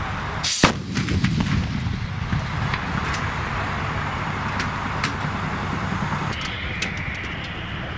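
M777 155 mm towed howitzer firing: a single sharp report about half a second in, followed by a low rumble. A steady low background rumble runs underneath, with a few light clicks afterwards.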